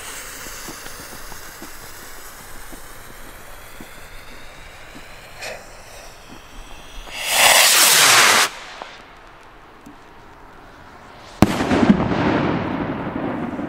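Funke 'Brokat Bund' 100 g F3 firework rocket going off: a steady hiss for the first seven seconds, then a loud rushing burst that lasts about a second. About eleven and a half seconds in comes a sharp bang that rolls away slowly.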